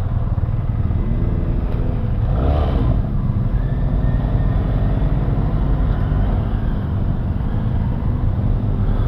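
Benelli TRK 502 motorcycle's parallel-twin engine running under a steady low rumble of road and wind noise, with a brief rise and fall in engine pitch about two to three seconds in.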